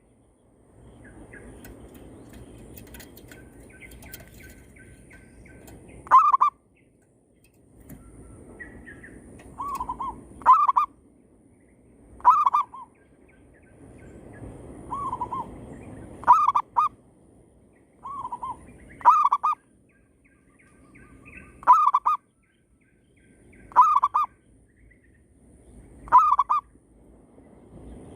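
Zebra doves (perkutut) calling back and forth: short, loud cooing notes repeated every two to three seconds, with a fainter bird's coo often answered straight away by a louder, nearer one. A low, even rustling noise fills the gaps between calls.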